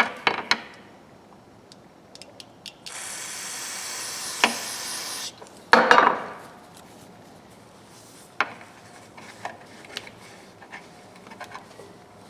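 Aerosol carburetor cleaner sprayed in one steady hiss of about two and a half seconds, followed by a loud clatter about six seconds in and scattered light clicks of small metal ratchet parts being handled.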